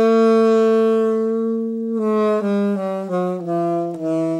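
Alto saxophone played hunched over, a posture meant to show the poorer tone from a cramped airstream: one long held note for about two seconds, then a run of short notes stepping downward.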